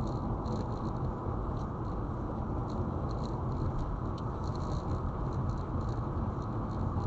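Car driving along a road: steady low road and engine noise, with faint scattered light ticks.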